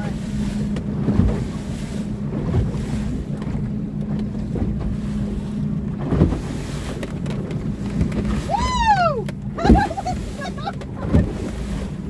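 Motorboat under way: its engine runs with a steady hum under the rush of wind and water, and the hull thuds on the waves a few times. About nine seconds in, a short squeal rises and then falls steeply.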